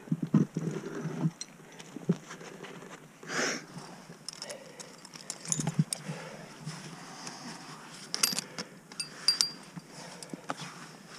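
Climbing hardware clinking and scraping, with rustling of a nylon jacket and hands scuffing on granite as a climber works up a crack. Scattered sharp clicks, busiest about eight to nine and a half seconds in, with a brief rush of noise about three seconds in.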